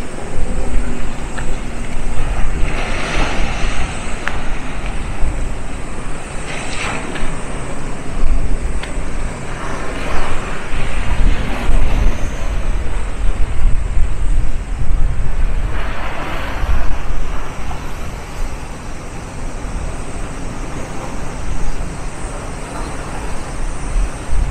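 Wind buffeting the microphone with a steady low rumble, while sea waves wash in on the shore in four hissing surges a few seconds apart.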